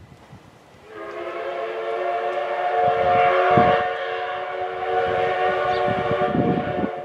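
Steam whistle of the SL Paleo Express's C58 steam locomotive sounding one long steady blast of about six seconds, starting about a second in: the departure signal as the train pulls out.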